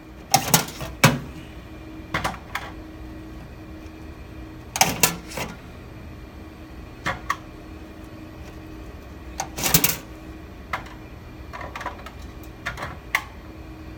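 Sharp clacks and rattles of metal and plastic server parts being handled and pulled in a rack, in irregular clusters, over a steady machine hum.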